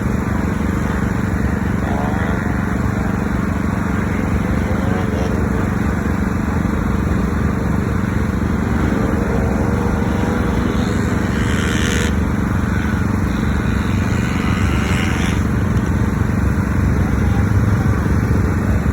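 Ice-racing car engines running, with the pitch rising a few times as they rev, and two hissing surges past the middle as cars go by.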